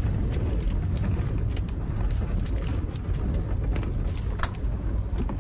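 Strong wind blowing and buffeting the microphone: a steady low rumble with scattered faint ticks.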